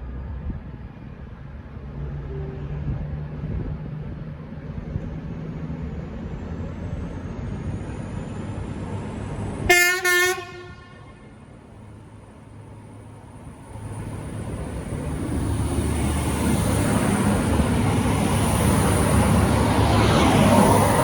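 V/Line VLocity diesel railcar VL10 sounding its low-note horn in two short blasts about ten seconds in. Then the train's rumble grows loud as it pulls away past, with a high steady whine over it.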